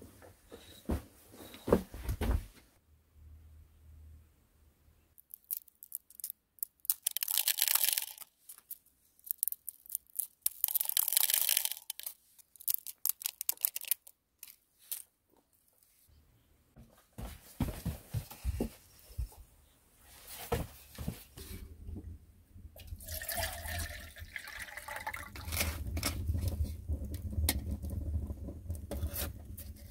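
Liquid poured in two short pours of a couple of seconds each. Later, scattered small clicks and knocks, then a wood fire crackling.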